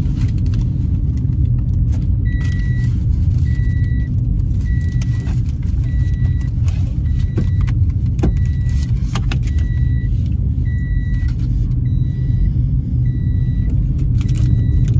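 Car cabin with the steady low rumble of the car running, and a high electronic warning chime beeping about once a second from about two seconds in. Crinkling and clicks of a paper and plastic food wrapper being handled sound over it.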